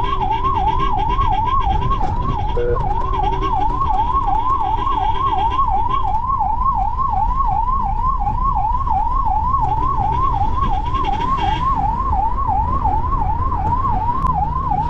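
Ambulance's electronic siren wailing without a break, heard from inside the cab. It sweeps about three times a second, each sweep rising in pitch and then dropping back sharply, over steady engine and road noise.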